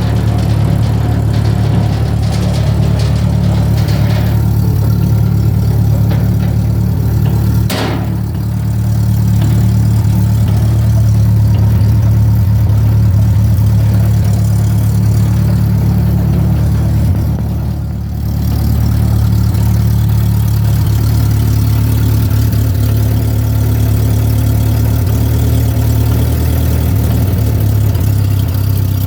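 Mayco concrete pump's engine running steadily with a low hum, easing off briefly twice. There is one sharp knock about eight seconds in.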